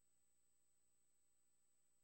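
Near silence: only faint, steady electronic noise with a thin high tone, no sound from the game itself.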